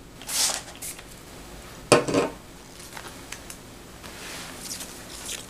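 Pump spray bottle of ZAGG application solution squirting. A short hiss comes about half a second in, and a sharp click with a louder hiss about two seconds in, followed by a few fainter short squirts.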